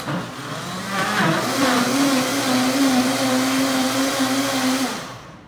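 High-powered countertop blender switched on to blend cantaloupe with club soda. It starts abruptly, speeds up about a second in, runs at a steady pitch, then shuts off and winds down near the end.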